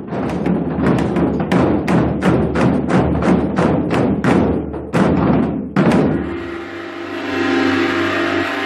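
Samulnori ensemble of Korean drums, janggu and buk, playing a fast run of strikes that stops on a final hit about six seconds in. A large gong (jing) is left ringing after it.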